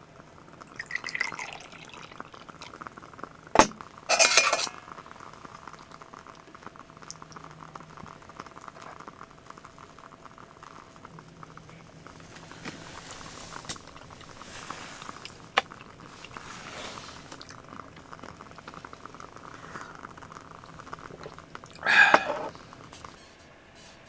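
Pots, dishes and utensils clinking and knocking as food is prepared, with a sharp knock about three and a half seconds in, a clatter just after, and another clatter near the end.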